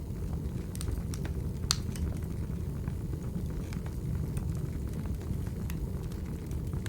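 Wood fire crackling in a fireplace: scattered sharp pops and snaps, the loudest about a second and a half in, over a steady low rumble.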